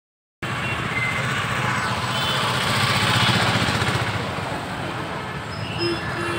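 Busy city road traffic: motorbike and auto-rickshaw engines running, with a passing vehicle swelling loudest about halfway through. Short horn toots sound near the end. The sound begins after a brief moment of silence.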